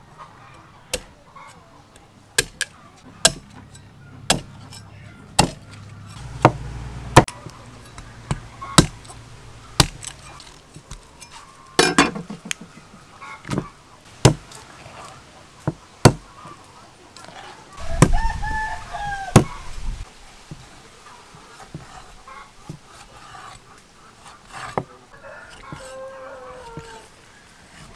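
Meat cleaver striking through a raw duck onto a wooden chopping board: sharp, irregular chops, sometimes in quick pairs. A rooster crows once about two-thirds of the way through, and weaker bird calls follow near the end.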